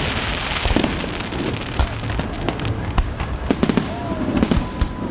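Fireworks display: a dense, continuous run of sharp cracks and pops over a steady noisy rush.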